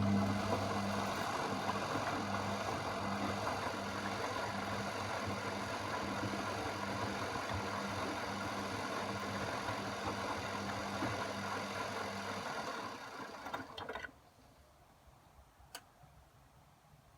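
Washing machine running with a steady electric hum and rushing water, like a drain pump or water inlet valve at work. The hum stops about twelve seconds in, the water noise dies away a second or so later, and a single click follows near the end.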